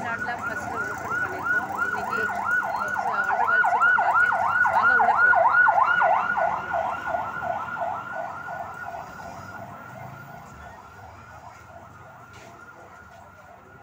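Electronic siren in fast yelp mode, a rapid rising-and-falling wail at about four sweeps a second. It swells to its loudest about halfway through, then fades steadily away.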